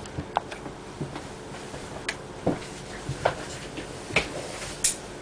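A string of about seven short, light clicks and knocks at uneven spacing, roughly one every half second to a second.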